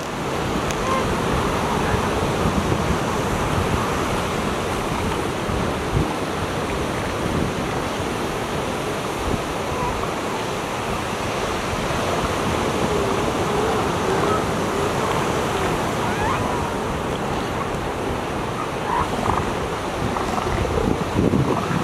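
Steady surf and wind noise on a beach. Faint calls from elephant seals come through now and then, about halfway through and again near the end.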